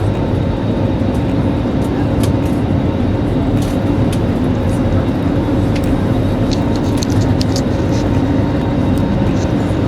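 Airliner engines and rushing air heard inside the cabin during the climb just after takeoff: a loud, steady drone with a hum, and scattered small clicks.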